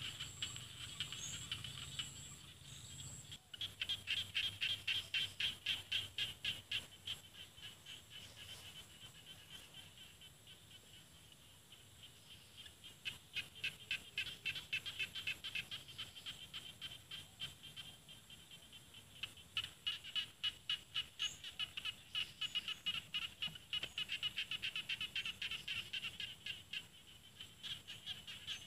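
Small rice-paddy frogs (khiat ja na) calling in fast trains of clicking pulses, in several bouts that swell and fade. A thin, steady high tone runs beneath and stops about three seconds in.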